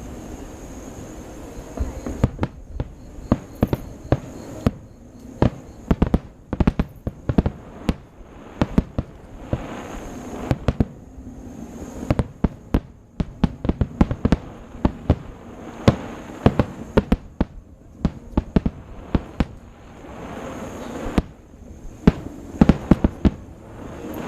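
Aerial fireworks bursting in a rapid, irregular barrage of sharp bangs, several a second in clusters with short lulls between.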